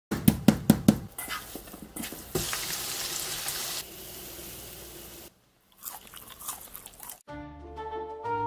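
Kitchen sounds from making deep-fried sweet and sour pork: four quick, sharp crunches at the start, then a few seconds of steady hiss like frying, and more small kitchen noises. Light instrumental music comes in near the end.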